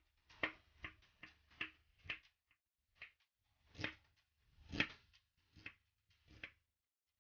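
Chef's knife chopping garlic and then cutting a red onion on a wooden cutting board: about ten sharp knocks of the blade against the board, quick and close together at first, then slower and more spread out.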